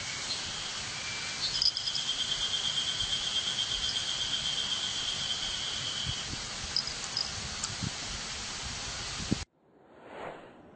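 An insect trilling: a fast, even pulsing at one high pitch that starts about a second and a half in and stops about six seconds in, over a steady hiss. The sound cuts off suddenly near the end.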